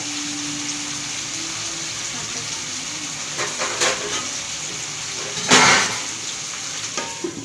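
Brinjals in oil and tamarind gravy sizzling and bubbling in a steel kadai over a gas flame: a steady hiss, with a short louder rush of noise about five and a half seconds in.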